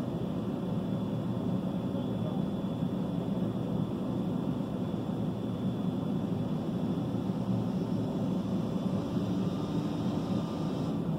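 Steady low rumble of idling vehicle engines, heard from inside a parked car.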